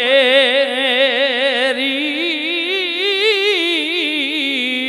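A man's voice holding one long sung note with a wide, even vibrato: the drawn-out last syllable of a chanted Punjabi verse, sung into a microphone.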